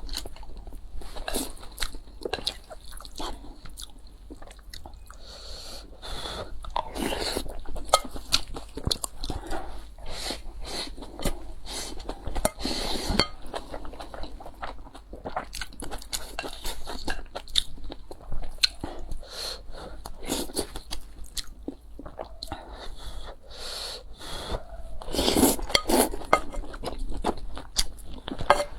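Close-miked eating sounds: a person chewing and biting food, with repeated irregular wet clicks and crunches and a few louder bites.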